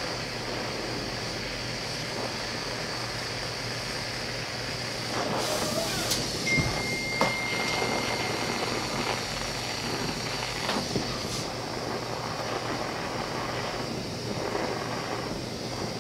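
Brazing torch flame burning with a steady hissing rush as it heats a copper tubing joint. A few light knocks come around the middle, along with a thin whistle that lasts about two seconds.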